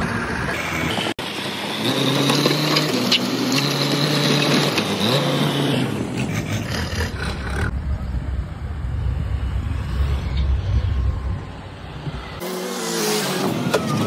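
Backhoe loader diesel engine running under load, its pitch shifting up and down in the first half. The sound changes abruptly twice as the clips cut, the later part a lower steady rumble.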